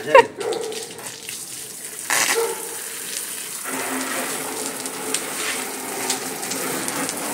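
Garden hose spraying water onto a scooter and the wet paving below: a steady hiss and splatter, louder for a moment about two seconds in.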